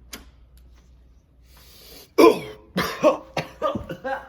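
A person coughing in a quick fit of about six coughs, starting about two seconds in, after a soft breathy sound.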